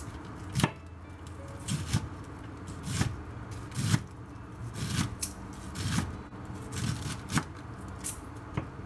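Chef's knife slicing green onions on a wooden cutting board: irregular knocks of the blade against the board, about one a second.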